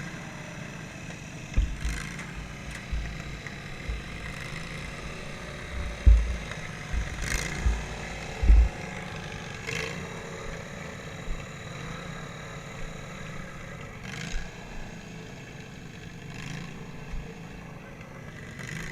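Racing riding-lawnmower engine running steadily, heard from a camera mounted on the mower, with a series of heavy low thumps and jolts, loudest about six and eight and a half seconds in.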